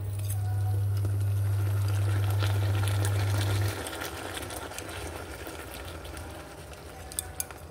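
A steady low hum, the loudest sound, cuts off suddenly a little under four seconds in. Under it, bean-sauce and coconut braising liquid bubbles softly in a frying pan, with scattered small pops.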